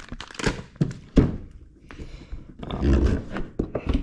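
Handling noise: a string of knocks and thunks from gear being moved about, the sharpest about a second in, with rustling and dull thumps around three seconds in.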